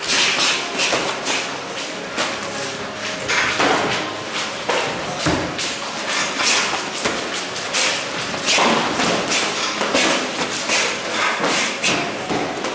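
Boxing sparring: gloved punches landing on gloves and padded headgear, an irregular run of thuds coming in quick flurries.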